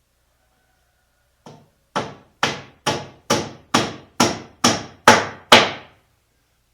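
Hammer driving a nail into a wooden board: one light tap, then nine even, sharp blows about twice a second, the last two the loudest.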